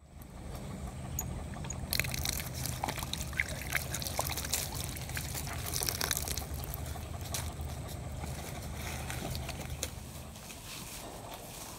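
Water running from a tap on a plastic water drum, pouring and splashing steadily. The flow builds up over the first two seconds and eases a little near the end.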